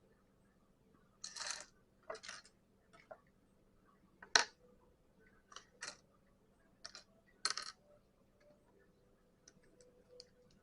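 Plastic Lego pieces being handled: scattered short clicks and brief rattles, the sharpest click about four seconds in.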